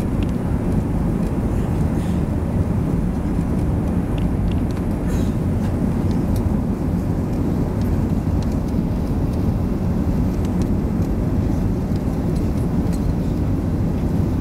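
Steady low rumble of cabin noise inside an Airbus A380-800 in flight on approach to land.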